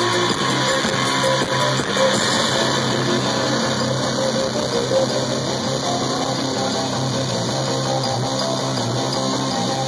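Live amplified music from the Magic Pipe, a homemade electric instrument of bent steel pipes strung with a bass string, playing a dense, bass-heavy pattern of low plucked notes through the PA.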